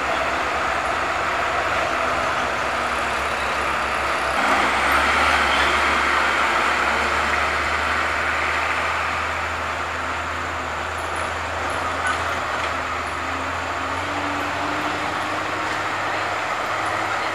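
Hino box truck's diesel engine pulling up a steep hairpin bend, a steady drone that grows louder about four seconds in, mixed with passing road traffic. A slowly rising engine pitch comes in near the end.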